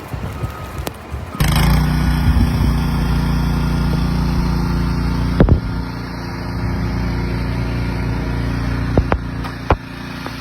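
Wind buffeting the microphone, then, after a sudden switch about a second in, an engine running steadily with a few sharp knocks over it.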